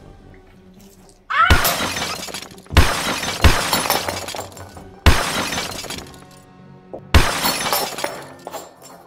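Drinking glass shattering on a hard floor, the crash heard about four times over, each one ringing on with a tinkling of shards.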